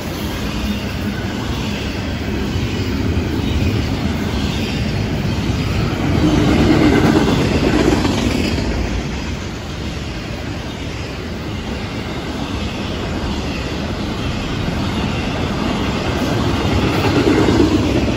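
Florida East Coast Railway intermodal freight cars, trailer flatcars and container well cars, rolling past at close range: a steady rumble of steel wheels on the rails with a clatter over the joints, swelling louder about seven seconds in and again near the end.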